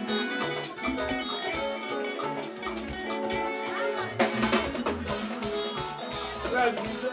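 Live band music with a steady drum kit beat: snare and bass drum under sustained instrument tones.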